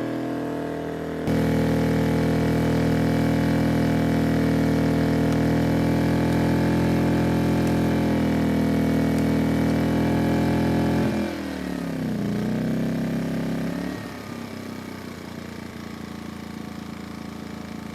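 ERAYAK 2400W portable inverter generator's engine running steadily under heavy load, near its rated output; it gets louder about a second in. About eleven seconds in, its pitch sags deeply and climbs back. Near fourteen seconds it drops to a quieter, lower-speed running.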